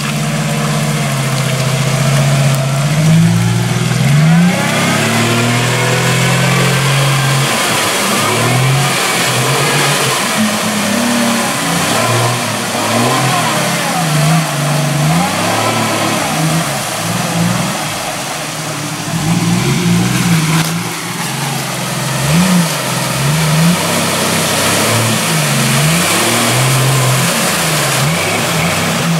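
Jeep Wrangler engine revved up and down over and over as the Jeep pushes through mud and a flooded mud hole, with tyres churning and muddy water splashing.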